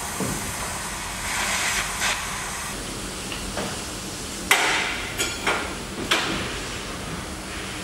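Four sharp hammer blows in about a second and a half, the first the loudest, each with a short metallic ring, preceded by a brief hissing rush.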